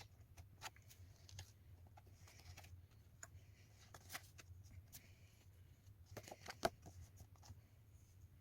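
Faint rustling and scattered small clicks of paper and plastic packaging being handled, with one sharper click about two-thirds of the way through, over a low steady hum.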